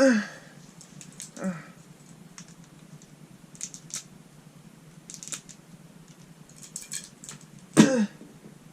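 Foil trading-card pack being cut and opened with a sharp object: faint crinkles and small snips. It is broken by three short vocal sounds falling in pitch, the loudest near the end.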